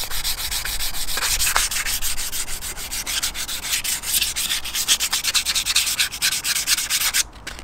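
Hand sanding a painted alloy wheel's spokes with a small piece of fine sandpaper: a scratchy hiss in quick, short back-and-forth strokes, with a brief pause near the end. This is the smoothing stage, taking out the scratches left by coarse 80-grit sanding before priming.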